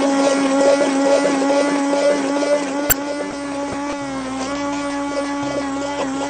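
Hand blender motor running steadily with a humming whine, its blade head submerged in a thin chocolate sauce in a glass bowl. A single sharp click comes about three seconds in, and the pitch wavers slightly toward the end as the load shifts.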